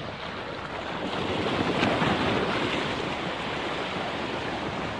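Small sea waves washing in and draining over a rocky shoreline, a steady wash that swells a little about a second in, with wind buffeting the microphone.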